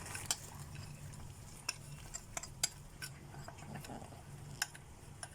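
A metal spoon clinking lightly and scraping as a mixed-nut filling is spread over phyllo sheets in a baking tray: scattered soft clicks and taps.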